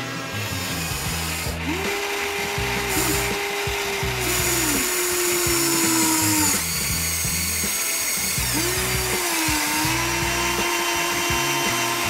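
Electric motors of a Huina remote-control toy excavator whining as the arm and bucket move, the pitch sliding up and down in two runs of several seconds. Background music with a steady beat underneath.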